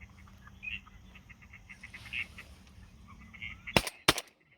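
Ducks calling faintly in short repeated notes, then two shotgun shots in quick succession near the end.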